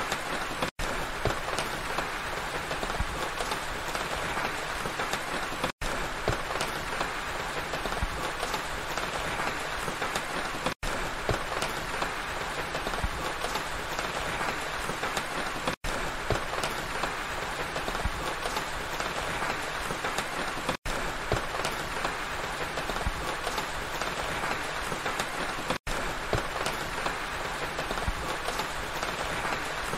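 Steady rain falling, a dense hiss of many small drops, broken by a split-second dropout about every five seconds.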